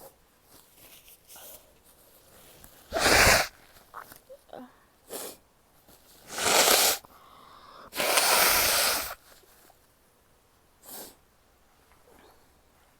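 A person sneezing several times, with small sniffs and breaths between. A sharp sneeze comes about three seconds in and another a little past halfway. A longer blast of breath lasting over a second follows soon after.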